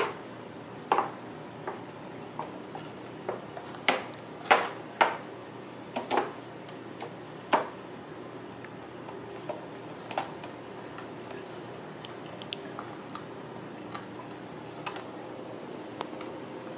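Ragdoll kittens pawing and scrabbling at a cardboard gift box with a clear plastic window: irregular sharp taps, scratches and crinkles, busiest in the first eight seconds, then sparser, fainter ticks.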